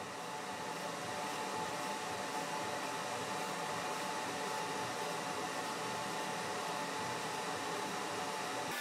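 Flux Beamo 30 W CO2 laser engraver running as it engraves wood: a steady fan-like whoosh with faint whining tones over it.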